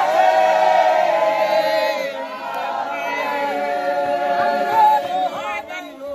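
A congregation of Revival Zion worshippers singing together in many voices, holding long notes.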